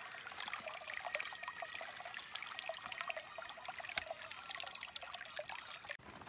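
Wood campfire crackling and meat sizzling over the embers: a steady hiss full of small pops, with one sharp crack about four seconds in.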